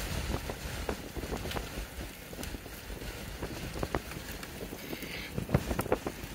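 Wind buffeting the microphone: a steady rushing with frequent short pops and crackles as gusts hit it.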